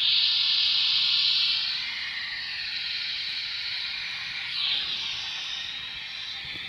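A steady, high-pitched hiss like static, which comes on abruptly and eases a little after about two seconds.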